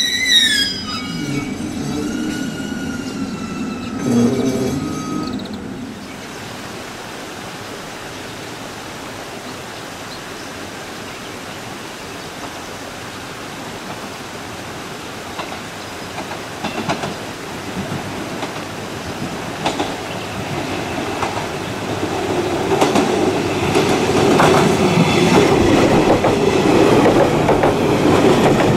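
A JR Kyushu 813-series electric train moving off along the platform, its wheels giving high squealing tones that fall in pitch and fade over the first few seconds. After a quieter stretch, another electric train approaches and runs past close by, its rumble and clicking wheels building steadily to the loudest point near the end.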